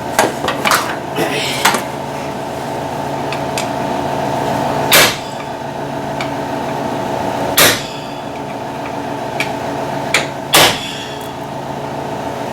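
Three sharp hammer blows on metal, a few seconds apart, staking the front axle nut to lock it in place. Lighter metallic clicks come in the first two seconds, and a steady mechanical hum runs underneath.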